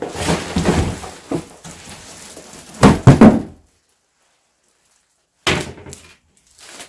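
Cardboard box and plastic bag rustling as a heavy subwoofer is lifted out of its packaging, with a loud thump about three seconds in. After a silence, two brief bursts of handling noise near the end.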